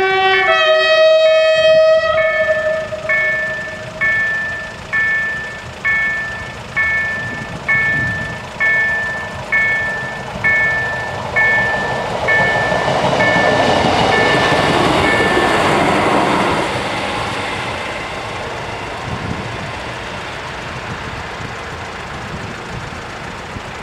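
Level-crossing warning bell striking about once a second, each stroke ringing and dying away, until it stops about two-thirds of the way in. A train horn sounds two notes at the start, low then higher. A Koleje Mazowieckie regional train then rushes past the crossing, swelling and fading.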